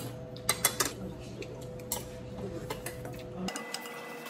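Eating utensils clinking against dishes and bowls, with a quick cluster of sharp clinks just under a second in and scattered lighter clicks after.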